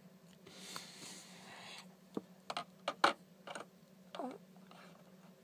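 Small hard plastic Nendoroid figure parts being handled. There is a short rustle, then a run of sharp clicks and taps, the loudest about three seconds in.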